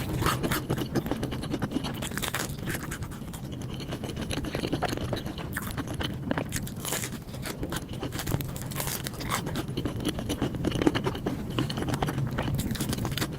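Close-miked eating sounds: a person chewing and crunching food in irregular wet clicks and crackles, over a low steady hum.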